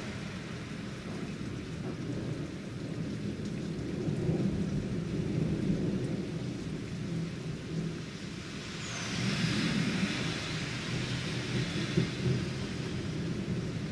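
Steady rain from a thunderstorm, with low rolling rumbles of thunder swelling twice. Near the end a car passes on the wet street, its tyres hissing.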